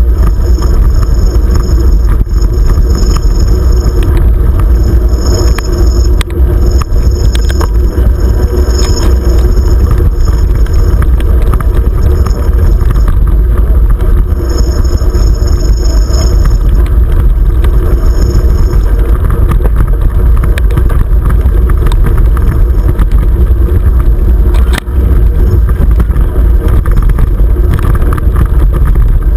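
Steady low rumble of wind buffeting the camera's microphone and a 29er mountain bike's tyres rolling over a dirt trail, with scattered knocks and rattles from bumps.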